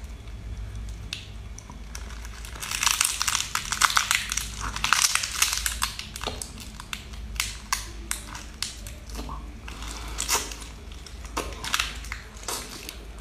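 Close-miked eating of shell-on seafood: crisp crunching and cracking as the shells are bitten, with chewing between, in dense runs of crunches a few seconds in and scattered ones after.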